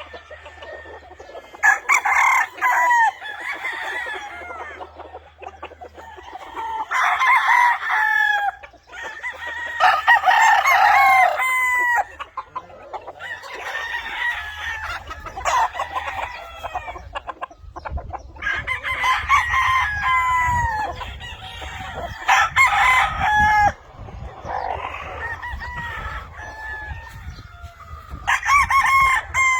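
Several roosters crowing over and over, their calls often overlapping, with a fresh crow every few seconds and clucking between them.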